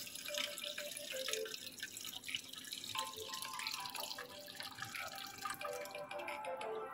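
A thin stream of clear rinse water trickling from a glass bowl of washed rice into a stainless steel mesh strainer, thinning to drips near the end.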